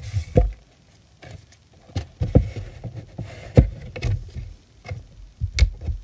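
Paper and cut milk-carton triangles being handled and slid about on a wooden tabletop, with soft rustling and half a dozen short knocks and thumps as things are set down.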